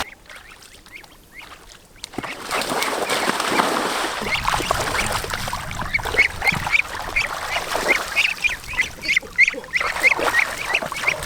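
A flock of ducks quacking, with many short overlapping calls. The calls start about two seconds in and come several a second in the second half.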